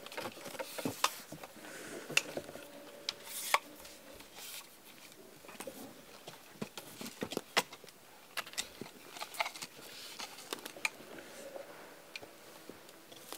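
Scattered light clicks and rustling close to the microphone, irregular and sharp: clothing and optics gear being handled.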